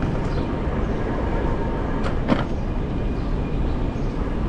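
Wind and road noise on the microphone of a moving e-bike: a steady low rumble, with two sharp knocks just after two seconds in.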